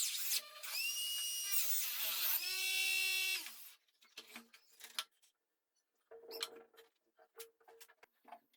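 Small electric power tool motor, drill-like, whining as it spins up, dipping in speed briefly under load, then stopping after about three seconds. Then a few light knocks and clicks of handling.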